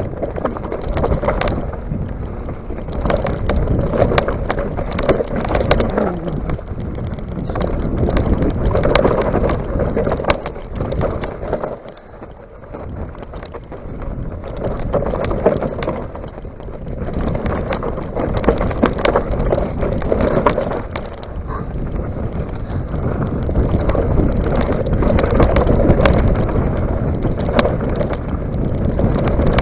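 Mountain bike riding fast down a rough dirt and gravel trail: tyres crunching over stones and earth, with frequent knocks and rattles from the bike and wind noise on the microphone. It eases off briefly near the middle, then builds up again.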